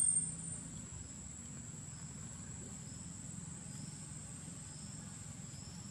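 Faint, steady high-pitched insect drone over a low background hum.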